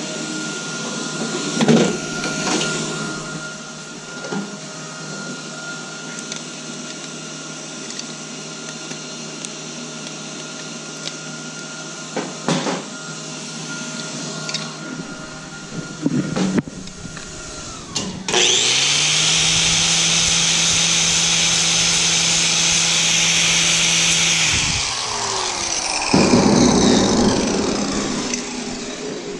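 Electric miter saw motor starting up with a rising whine, running steadily for about six seconds, then winding down, followed by a loud rough burst. Before it, a steady shop hum with a few knocks of tools being handled.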